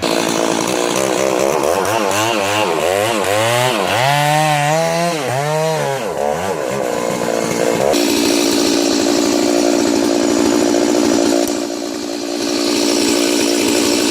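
Stihl MS 290 Farm Boss two-stroke chainsaw running, its engine speed rising and falling over and over for the first half, then holding a steady high pitch from about eight seconds in.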